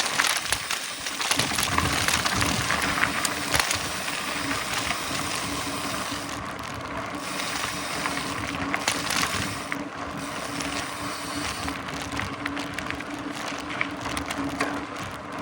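Mountain bike riding along a trail: tyres rolling and the bike rattling over the rough ground, with a steady hum underneath.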